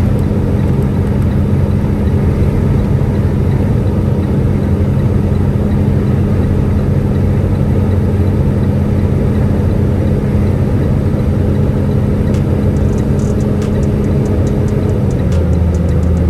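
Semi-truck engine running steadily, heard from inside the cab as a constant low drone; about fifteen seconds in, its note shifts to a different pitch.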